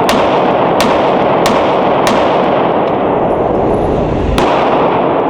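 Glock 19 Gen 5 9mm pistol firing: four shots about two-thirds of a second apart, then one more shot after a pause of roughly two seconds.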